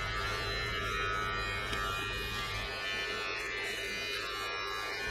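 Braun BT5265 electric trimmer running with a steady buzz as it cuts scalp hair, with background music.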